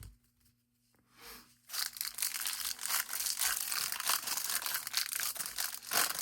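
Foil wrapper of a hockey card pack being torn open and crinkled, starting about two seconds in after a near-quiet start.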